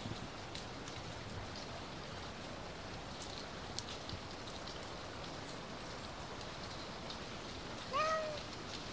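Steady soft patter on dry fallen leaves, with scattered small ticks. About 8 seconds in, a tabby cat gives one short meow.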